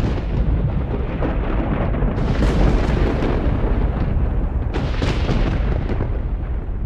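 Thunder sound effect: a deep, continuous rumble with two louder crashes, about two and five seconds in.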